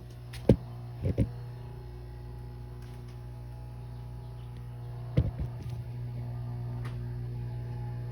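Garage door opener motor running with a steady hum, its burnt-out motor capacitor replaced, with a few sharp clicks about half a second, a second and five seconds in. It sounds pretty good.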